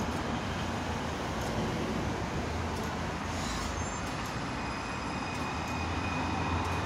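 Road traffic on a city street, cars driving past as a steady, even rush of noise. A faint steady high tone comes in about halfway through.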